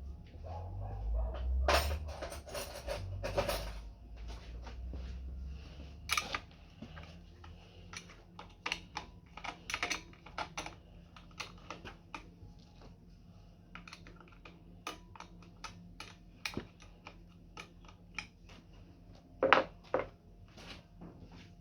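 Scattered light clicks and taps of hands and tools on metal parts, with heavier knocking and scraping in the first few seconds and a couple of louder clicks near the end.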